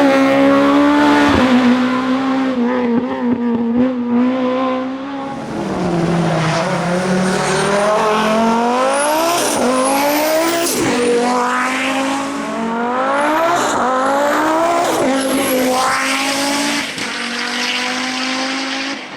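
Race car engine under hard acceleration. It holds fairly steady revs for the first few seconds, then climbs and drops back through several quick gear changes, with a high whistle rising alongside each climb.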